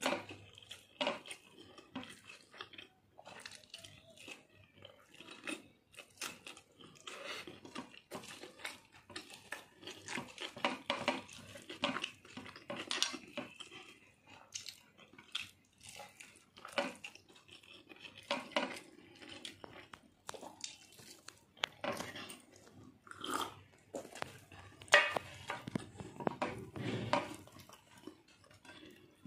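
Eating rice and meat curry by hand: fingers scooping and mixing rice on a plate, with irregular clicks and scrapes against the plate and mouthfuls being chewed.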